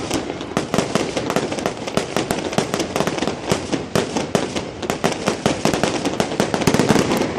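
Aerial fireworks going off in rapid succession: a dense run of sharp bangs and crackles, several a second, without a pause.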